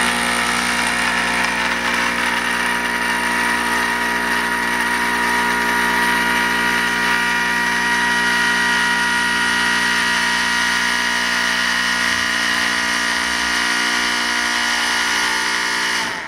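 Greenlee 960-SA hydraulic power pump's 1.5 horsepower electric motor running steadily under load, driving the pump to extend the hydraulic ram. It cuts off abruptly near the end.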